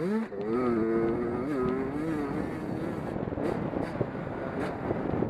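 Race car engines running at speed, one engine's steady note prominent for the first few seconds, then fading into the general engine noise.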